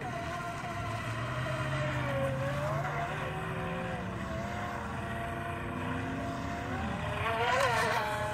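Brushless electric motor of an FT012 RC speed boat whining as it runs across the water, its pitch rising and falling with the throttle. Near the end it passes close by, louder, with a rush of spray.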